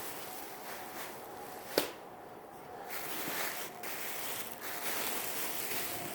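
Plastic garment bags crinkling and rustling as dresses are handled, with one sharp click a little under two seconds in.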